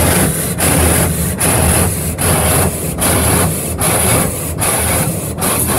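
Automatic car wash spray jets beating water and foam against the car, heard from inside the cabin. The noise is dense and pulses in a steady rhythm, dipping a little faster than once a second.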